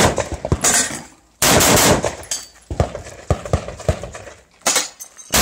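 Rifle-carbine gunfire at close range: fast strings of shots near the start and again about one and a half seconds in, then single shots and quick pairs with short pauses between them.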